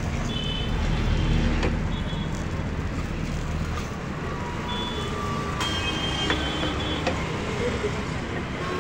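Steady road traffic rumble from the street beside the stall, with a few brief high tones coming and going. A couple of light clicks come from a metal spatula turning the omelette in the pan.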